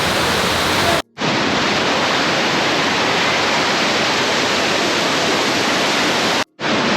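Steady rush of water from a waterfall tumbling over rocks, cut off briefly twice, about a second in and near the end.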